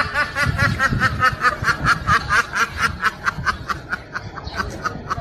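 A person's rapid, high-pitched laughter: a long run of short, squeaky "hee" pulses, about six or seven a second, fading somewhat near the end.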